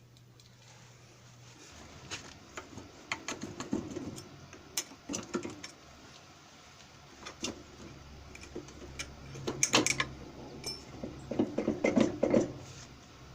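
Metal tools clinking and knocking against metal parts in irregular clusters, with the loudest run of knocks near the end, over a faint low hum.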